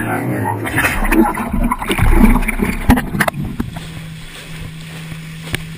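Water rushing and splashing against an action camera's waterproof housing as a towed kneeboard skims through a boat's wake, with many sharp crackles and knocks. After about three seconds it settles into a quieter, steady rush with a low hum.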